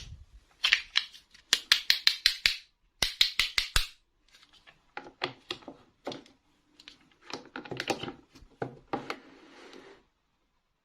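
Small plastic toy pieces and packaging being handled: a quick run of sharp clicks and taps, then softer scattered knocks and rustling, going silent near the end.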